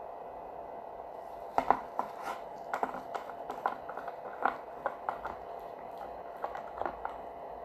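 Gloved hands handling a gel top coat bottle and a plastic nail tip on a crystal display stand: a scatter of light, irregular clicks and taps as the bottle's brush cap is unscrewed, over a steady faint hum.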